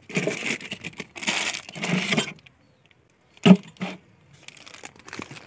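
A hand rummaging through a box of toiletries for soap, plastic bottles, tins and wrapped packets rattling and rustling for about two seconds. After a short pause comes one sharp knock.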